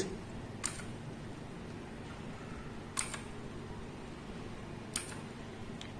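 Three single clicks of a key on a Keychron K8 mechanical keyboard, spaced about two seconds apart, each press stepping the RGB backlight to its next lighting mode.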